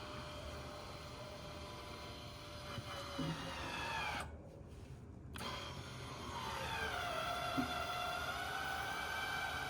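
Electric actuator motor on a remote control flail mower whining as it opens and closes the feed inlet. Its pitch falls about four seconds in, breaks off for about a second, then drops again and settles into a steady whine.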